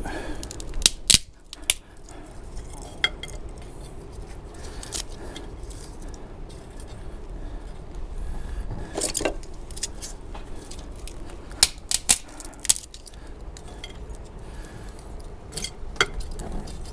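Irregular sharp clicks and light metallic clinks over a steady low wind rumble on the microphone: dry kindling catching and crackling in the metal fire base of a Ghillie storm kettle, with sticks knocking against the metal.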